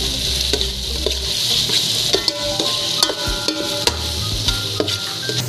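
Food sizzling in hot oil in a pot while a spoon stirs and scrapes it: sautéing. About a dozen sharp clicks of the spoon against the pot stand out over the steady sizzle.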